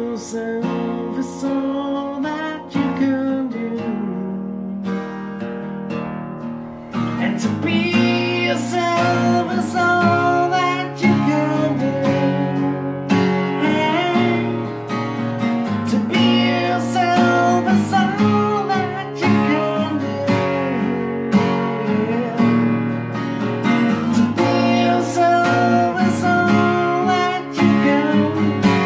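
A man singing over his own strummed acoustic guitar. The song is softer for the first few seconds, then the strumming and singing get louder from about seven seconds in.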